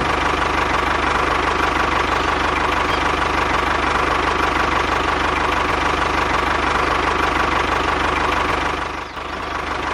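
A small engine running steadily with a fast, even chugging; it drops briefly about nine seconds in.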